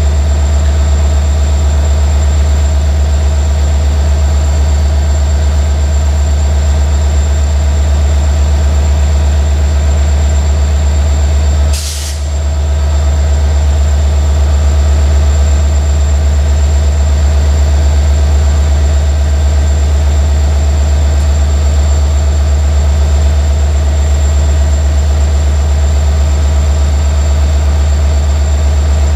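Electroputere 060-DA diesel-electric locomotive's Sulzer diesel engine running with a deep, steady drone. A short hiss comes about twelve seconds in.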